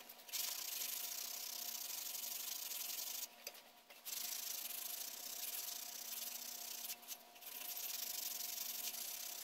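Hand sanding with a small piece of sandpaper, rubbing padauk splines flush with the maple segments of a wooden clock dial: a steady hiss in three long spells, broken by short pauses about three and seven seconds in.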